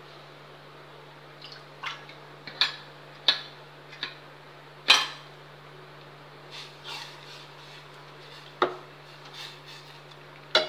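Stainless steel kitchen vessels and utensils clinking and knocking against each other: several sharp clinks at irregular intervals. A steady low hum runs underneath.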